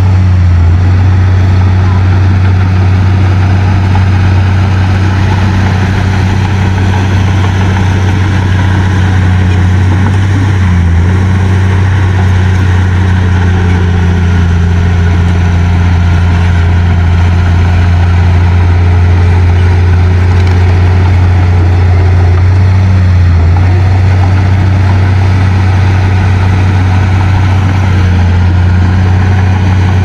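Small crawler bulldozer's diesel engine running steadily at one constant pitch.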